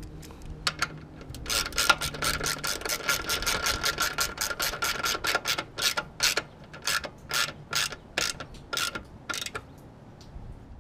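A ratchet clicking in a fast run of strokes, then slower, more spaced clicks toward the end.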